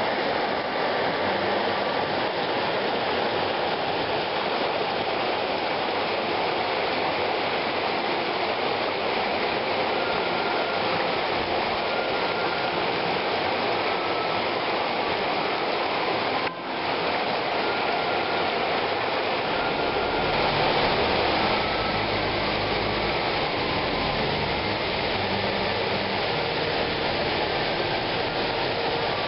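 Rushing water: a stream pouring out of a rock tunnel and over a weir, a steady full rush of water with a brief break about halfway through and a deeper sound in the later part.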